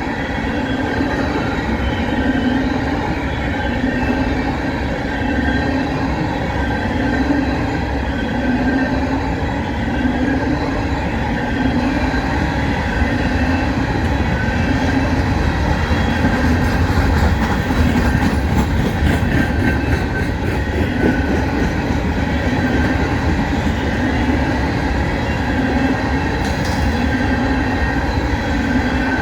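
Empty coal cars of a CSX freight train rolling past, with a loud, steady rumble and the wheels clacking over the rail joints in a repeating rhythm about every two seconds.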